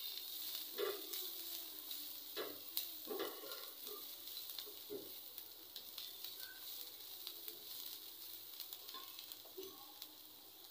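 Chopped onions, ginger and green chillies sizzling in a little oil in a non-stick frying pan, stirred with a silicone spatula that scrapes and taps the pan a few times.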